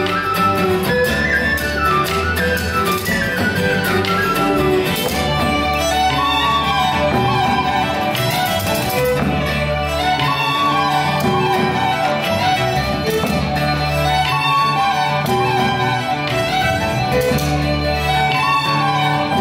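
A small band playing a traditional-style folk tune: a fast, ornamented lead melody over strummed acoustic guitar, electric bass and drum kit.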